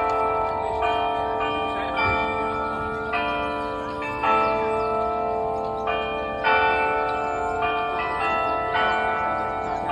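The Delacorte Musical Clock's bells playing a melody, a new note about every half second, each note ringing on under the next.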